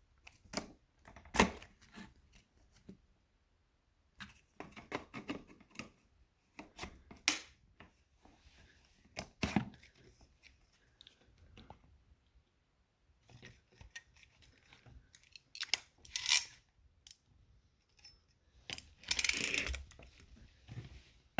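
Irregular handling noises: scattered clicks, knocks and short rustling scrapes, the sharpest about a second and a half in and a longer rustle near the end, with no motor running.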